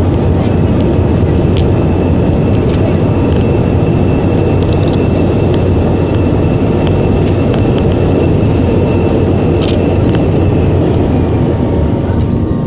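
Airliner cabin noise: the engines and rushing air make a loud, steady roar with a faint high whine, broken by a few light clicks.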